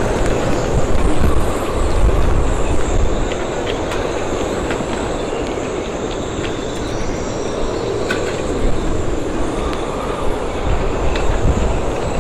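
Storm-force wind blowing hard across the marina and buffeting the microphone with a deep rumble, with a thin high whistle from the boats' rigging and a few scattered ticks and knocks.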